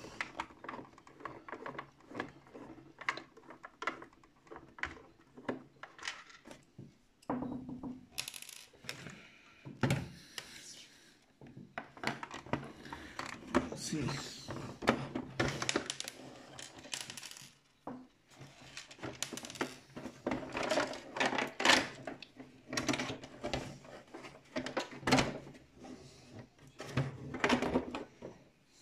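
Plastic clicks, knocks and scrapes of an RC tank's plastic hull being handled and taken apart, ending with the upper hull lifted open.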